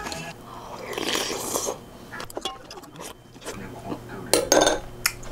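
A person eating ramen: slurping noodles and broth from a spoon, chewing, and a metal spoon tapping against a bowl and a steel pot, the sharpest taps near the end.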